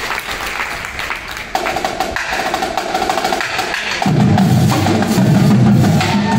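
Indoor drumline (marching percussion battery of snare, tenor and bass drums with cymbals) playing rapid drum strokes; a held pitched note joins about a second and a half in, and the ensemble comes in louder and deeper about four seconds in.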